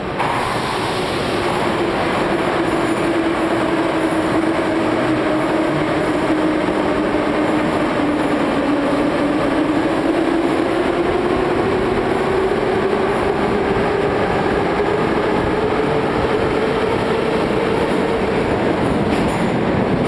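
Moscow Metro train running loudly through the station: a dense rumble with a whine that sinks slightly in pitch and then climbs over the second half.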